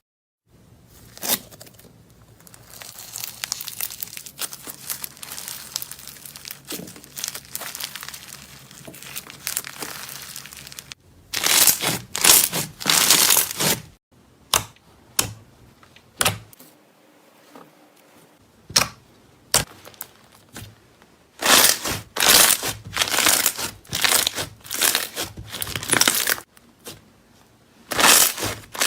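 Slime being squeezed, stretched and pressed by hand, making crinkly crackling and popping sounds. The handling is quieter at first, then comes in loud clusters of crackles about a third of the way in and again through the last quarter.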